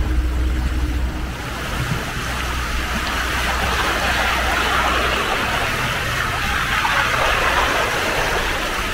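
Low steady hum of a sailboat's engine under way, growing fainter about halfway through, under a steady rush of water along the hull that grows louder after a few seconds.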